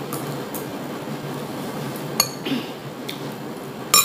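Metal cutlery clinking against a ceramic plate twice, once about two seconds in and again, louder and ringing, near the end, over a steady low room hum.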